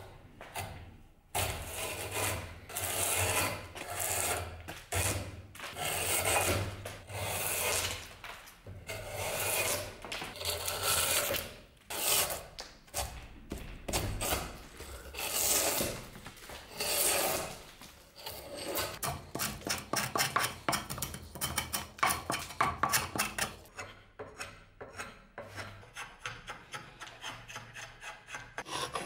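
A drawknife shaving wood: long pulled strokes scraping bark and wood off a log, about one a second, turning into quicker, shorter shaving strokes in the last several seconds.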